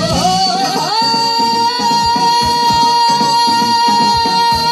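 Woman singing a Korean gugak gayo (folk-song adaptation of pansori) into a microphone: her voice slides upward in the first second, then holds one long high note that wavers near the end, over an accompaniment with a steady beat.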